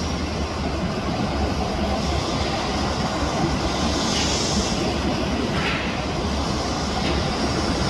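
Airbus A350's Rolls-Royce Trent XWB turbofan engines running at taxi power as the airliner taxis slowly, a steady jet rumble and hiss with a brief rise in hiss about four seconds in.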